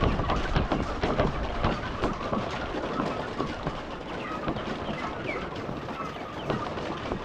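A flock of chickens pecking at their feed, a dense, irregular patter of many quick taps with some clucking among them.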